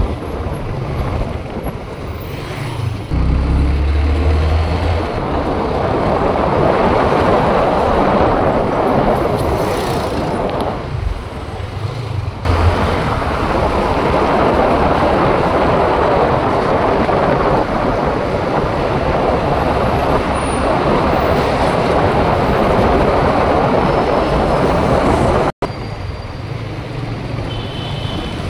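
Steady rush of wind and road noise heard from a moving motorcycle taxi in city traffic, with the motorcycle's engine underneath. The noise eases for a moment about eleven seconds in, and the sound drops out for an instant near the end.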